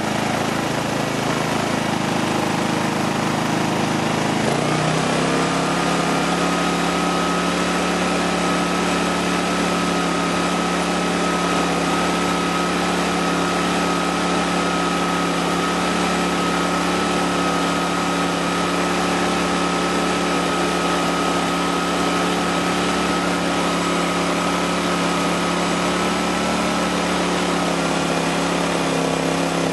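Fuji Micro 5200i generator's small engine running steadily. About four seconds in, its note settles and a steady high whine joins it. The note dips slightly near the end.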